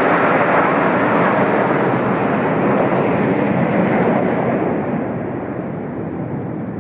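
Military jet aircraft flying overhead, a loud steady rush of engine noise that begins to fade about four and a half seconds in as they pass.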